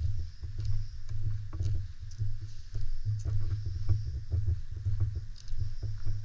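Car cabin noise picked up by a dashcam: an uneven low rumble that swells and fades, with many small rattles and clicks over it.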